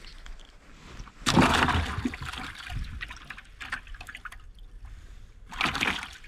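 Water splashing and sloshing about a second in, as a freshly caught bluegill is dropped into a bucket of water, followed by a shorter burst of splashing near the end.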